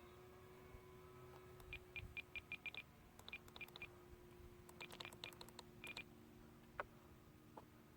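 Short high electronic beeps from a Spektrum iX12 RC transmitter in three quick runs, about six a second, with a sharp click near the end. A faint steady tone sits underneath.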